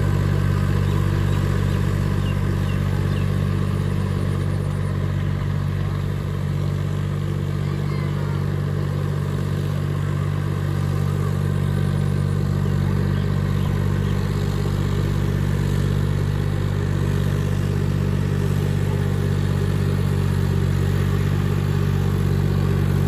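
Farmtrac 6050C tractor's diesel engine running steadily under load as it drives a rotary tiller through flooded paddy mud: a low, even drone that eases slightly partway through.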